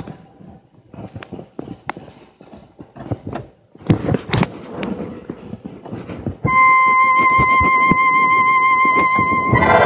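Scattered knocks and clicks, then about six and a half seconds in an electronic home organ sounds one high note held with a slight vibrato. Just before the end a fuller chord comes in.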